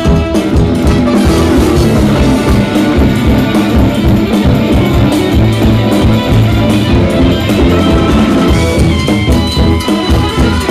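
Jazz-fusion band playing live at full volume: horns, keyboards, electric guitars, bass and drum kit together.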